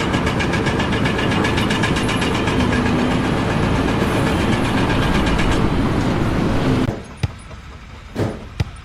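Loud mechanical running noise with a fine rapid ripple, which drops away sharply about seven seconds in, followed by a few sharp knocks.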